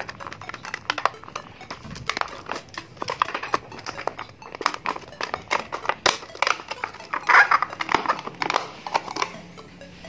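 Stiff clear-plastic blister packaging crackling and crinkling in irregular snaps as it is cut open with scissors and pulled apart to free a motorcycle ignition coil, with background music underneath.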